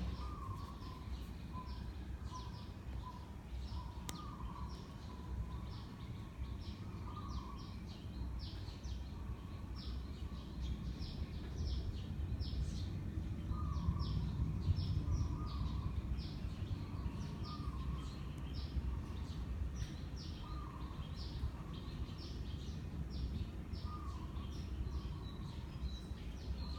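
Small birds chirping outside, short high chirps about twice a second, with a lower call repeated every few seconds. Beneath them is a steady low rumble of the 56-inch Sunwindy ceiling fan running.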